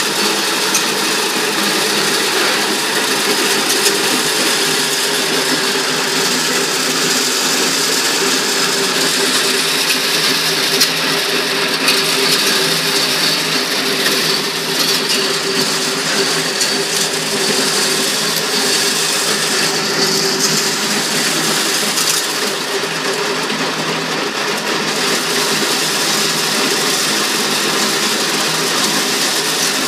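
Electric motor-driven corn sheller running steadily while ears of dried corn are fed in and shelled, a constant loud mechanical whir with a steady hum and scattered small clicks.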